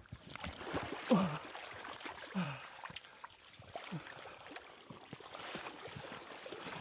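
River water splashing and trickling around a fish being landed. A few short wordless voiced sounds falling in pitch break in about one, two and a half, and four seconds in.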